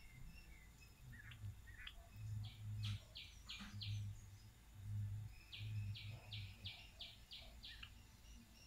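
High chirping calls in two quick runs, about five short notes and then about six, roughly three a second, with low muffled bumps underneath.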